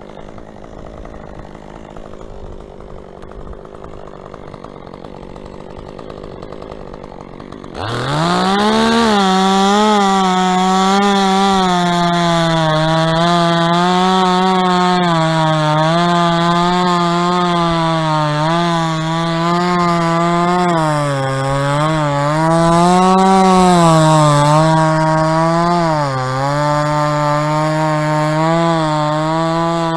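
Two-stroke chainsaw revving up sharply about eight seconds in, then running at high speed with its pitch wavering up and down. Before that there is only a quieter, steady background noise.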